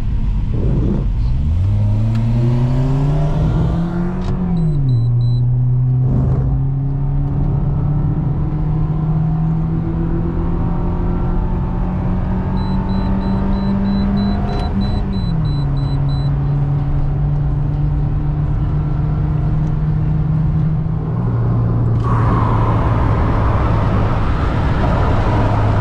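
Perodua Myvi engine heard from inside the cabin, accelerating hard from second gear in a roll race against another Myvi. The revs climb, drop with an upshift about four seconds in, climb steadily for about ten seconds, then drop with another upshift around fifteen seconds. About 22 seconds in, a loud rush of wind and road noise suddenly joins the engine, and a faint rapid beeping sounds twice during the run.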